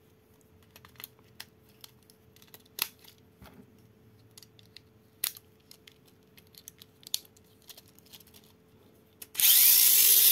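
Scattered plastic clicks and taps as AA batteries are fitted into a doubleA Dash 3 Shooting Star Mini 4WD replica. About nine seconds in, the car's small electric motor switches on and runs loud and steady, spinning the wheels.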